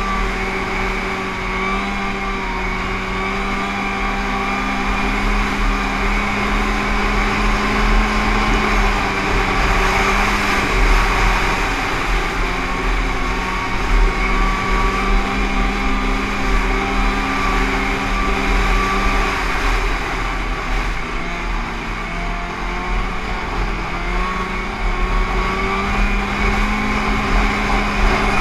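Snowmobile engine running at a steady cruising speed, with wind rushing over the microphone. The engine note drops a little about two-thirds of the way through and picks up again near the end.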